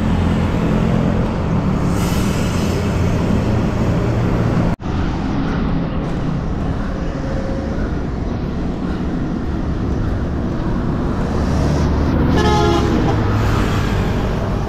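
Road traffic and wind heard from a moving bicycle: motor vehicles running close by with a steady low rumble, and a short pulsing horn honk about twelve seconds in. The sound cuts out for an instant about five seconds in.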